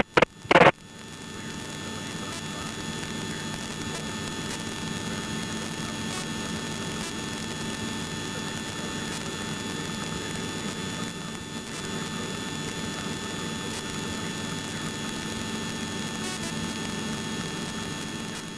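Helicopter in flight heard from inside the cabin: a steady engine and rotor noise with thin, constant high whines over it, dying away at the very end.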